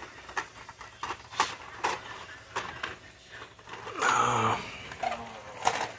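Hot Wheels blister-card packages being flipped through by hand on a store peg rack: light plastic clicks and clacks as the cards knock against each other and the pegs, coming irregularly.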